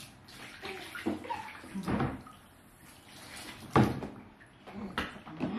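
Bath water splashing and sloshing in a bathtub as a baby is washed by hand, in irregular splashes, the loudest nearly four seconds in.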